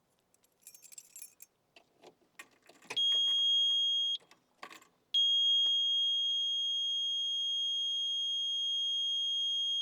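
Hitachi EX55UR mini excavator's electronic warning buzzer sounding a loud, steady high beep, first for about a second, then after a short break held for about five seconds. A few faint clicks and rattles come before it.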